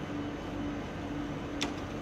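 A steady machine hum with a low tone that pulses about twice a second, and one sharp click near the end.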